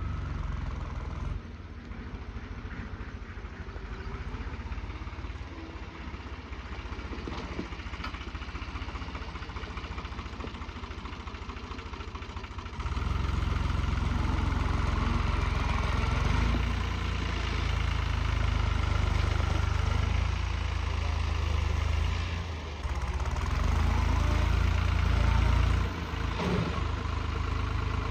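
Heavy-machinery diesel engine running steadily, then much louder and busier from about halfway through.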